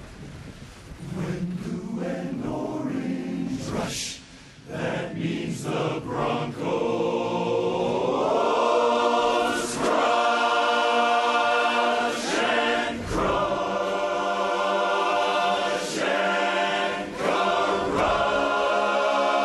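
Barbershop chorus singing a cappella with no recognisable words, rising about eight seconds in to a full chord that is held steadily to the end.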